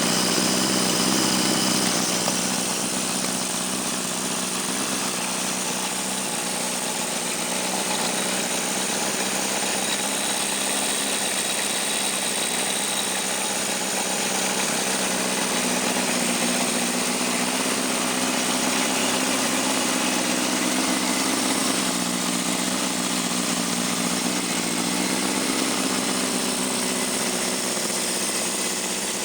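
Freshly rebuilt 1974 Honda CB750 K4 inline-four engine, bored out to 836 cc and fitted with open air filters, running steadily at idle on a test stand during its first run-in. The revs ease slightly about two seconds in and shift a little near the end.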